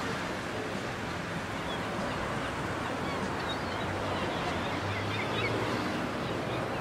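Steady outdoor ambient noise, an even wash with no single event standing out, with faint high chirps scattered through it.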